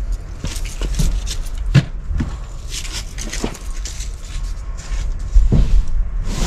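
Cardboard boxes being picked up and loaded into a van: scattered knocks and footsteps, with a louder thump about five and a half seconds in, over a low steady rumble.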